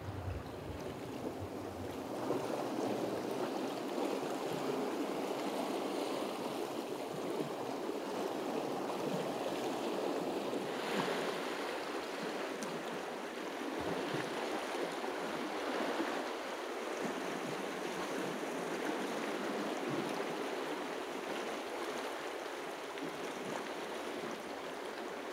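Sea waves washing against a rocky shore: a steady rushing wash that swells and eases, with one stronger surge about eleven seconds in.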